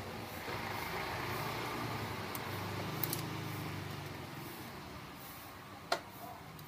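Two sharp metallic clicks, about three seconds apart, from a screwdriver working on the clutch of a Honda Wave 125i engine. Under them is a low vehicle rumble that swells and then fades.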